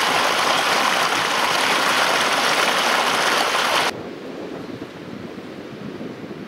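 A loud, steady rushing noise with no distinct events; about four seconds in it drops abruptly to a quieter, duller rush.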